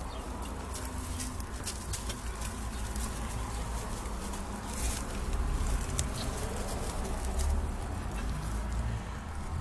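Young giant lop rabbits scrabbling and rustling in a straw-bedded wooden hutch: scattered clicks and taps over a low rumble.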